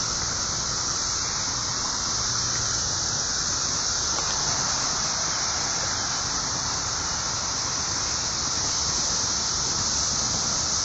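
Chorus of 17-year periodical cicadas: a steady, dense, high-pitched buzzing that goes on without a break.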